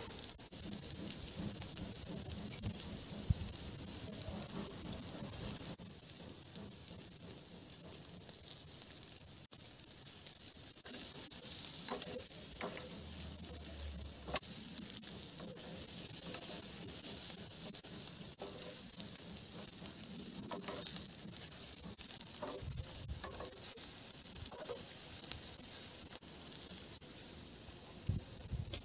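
Minced-meat kebabs sizzling and crackling over a charcoal grill, with a few light clicks as tongs turn them on the grate.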